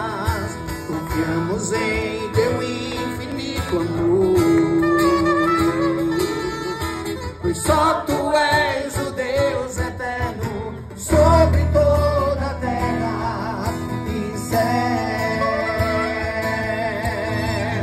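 Live worship music, a voice singing over acoustic guitar with a woodwind melody, played through a loudspeaker. A deep bass comes in about eleven seconds in.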